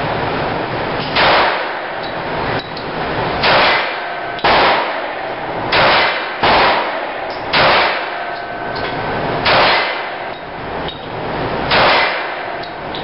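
About eight .45-calibre pistol shots fired one at a time, a second or two apart at an uneven pace, each a sharp crack with a brief ring after it.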